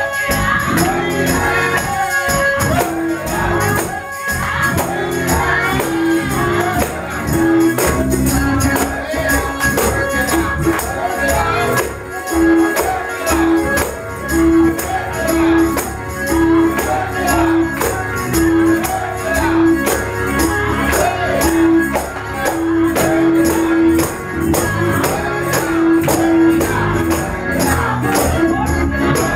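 Gospel praise music: tambourines shaken and struck in a steady, driving beat, with a hand drum and voices singing along.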